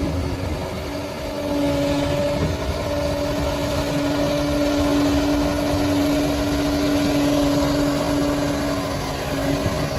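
Bulldozer's diesel engine running steadily, with a constant whine over the engine noise.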